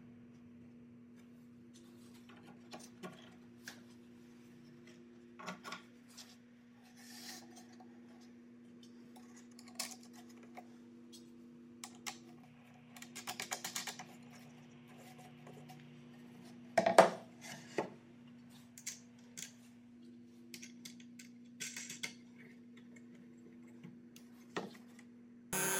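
Quiet hand-assembly sounds on a plywood jig: scattered light clicks and taps as a wooden block is positioned and wing nuts are spun onto their bolts, including a quick run of ticks partway through and one sharper knock of wood on the saw table about two-thirds of the way in, over a faint steady hum.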